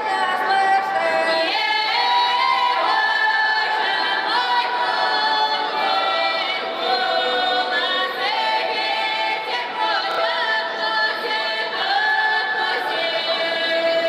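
Female folk ensemble singing unaccompanied in the Russian traditional style: several voices hold long notes together and slide between pitches.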